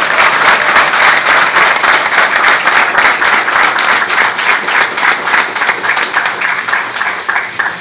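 Audience applauding, with hands clapping close by; the applause thins out and fades near the end.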